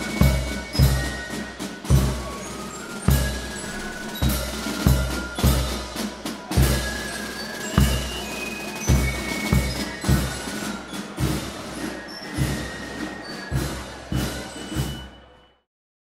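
Parade band music: a heavy drum beating about once or twice a second, with short bell-like glockenspiel notes over it, fading out near the end.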